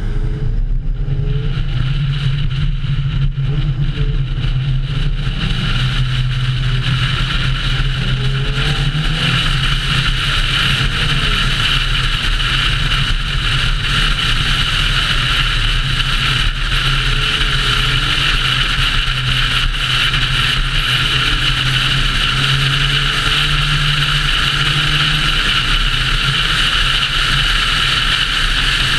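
A car driving fast on a highway: steady engine drone and road noise with a strong rushing hiss of wind. It gets louder about a second in, then holds steady.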